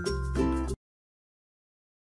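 Background music that cuts off abruptly a little under a second in.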